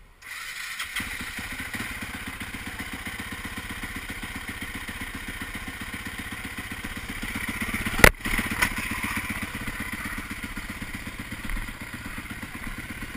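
Husqvarna 510 SMR supermoto's single-cylinder four-stroke engine catching just after the start and settling into an even idle. A single sharp clack comes about eight seconds in.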